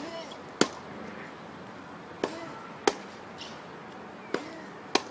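Tennis rally on a hard court: a ball struck by rackets and bouncing, heard as six sharp pops that fall in pairs about two seconds apart.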